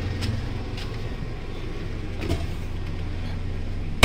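Steady low mechanical hum from the machinery powering the camper, with a few faint footsteps.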